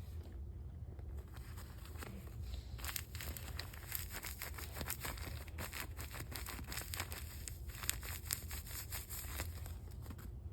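A squishy toy being squeezed and handled: dense, fine crinkling and crackling that starts about three seconds in, over a low steady hum.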